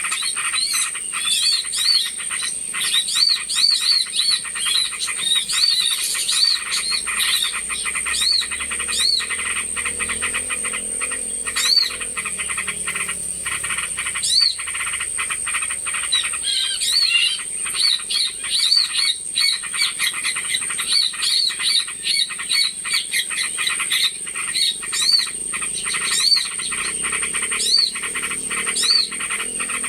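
Recorded lure calls of small birds: a busy run of short arching chirps repeated many times, with dense clicking and a steady high-pitched whine beneath.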